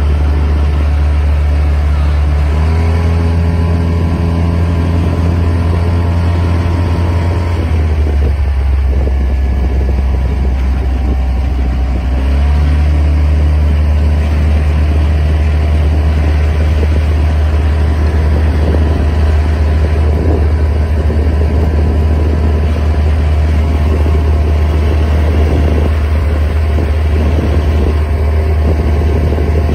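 Outboard motor of a small boat running steadily, a low drone with an engine note that steps in pitch a few times in the first dozen seconds as the throttle changes, then holds steady.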